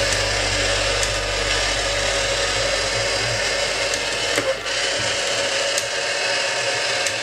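Toy Ferris-wheel parking garage's small electric motor and plastic gears whirring steadily as the wheel turns, with a brief dip about four and a half seconds in.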